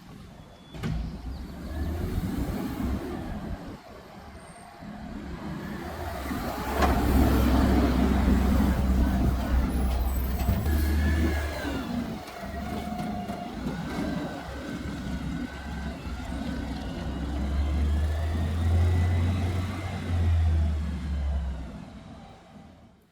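Motor vehicle engine rumble, growing louder about a third of the way in and again near the end, then cutting off abruptly.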